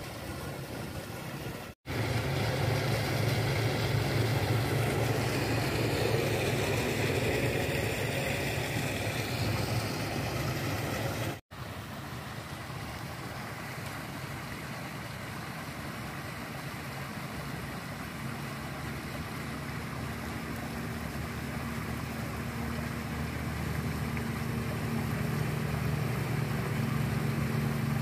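Steady low engine hum mixed with rushing water: a sand-pumping rig driving a sand-and-water slurry out through its discharge pipe. The sound breaks off sharply twice, once about two seconds in and again about eleven seconds in.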